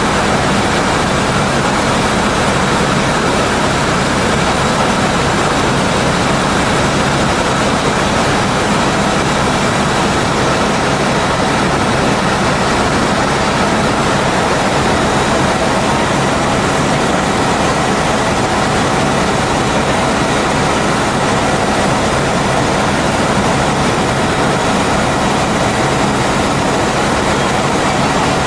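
Helicopter cabin noise in flight: a steady, loud, even rush of engine and rotor noise with a faint steady whine running through it.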